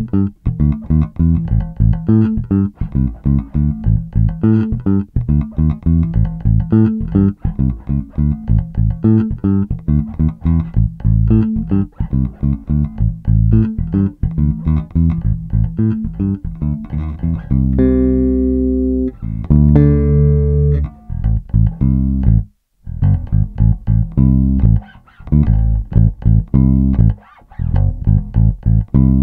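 Grassroots G Amaze DX jazz-style electric bass with two jazz bass pickups, played fingerstyle in a quick run of plucked notes. About two-thirds of the way through, two long notes are left to ring, then comes a brief stop before the notes pick up again.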